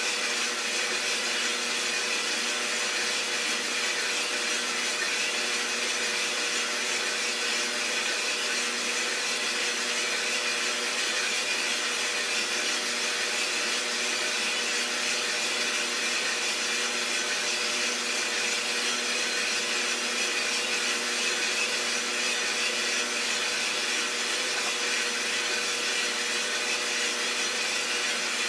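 Iroster 600 coffee roaster running steadily during a roast: an even whoosh of its fan and drum with a low motor hum, unchanging throughout.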